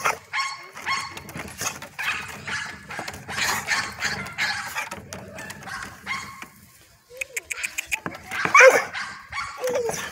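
An American pit bull terrier making short whines and barks, amid many short clicks and knocks. The loudest cry comes about eight and a half seconds in.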